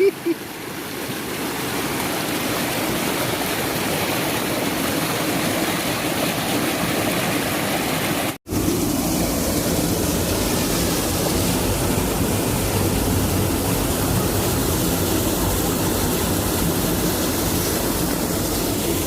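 Steady rush of water falling and flowing over rocks, broken by a momentary gap about eight seconds in.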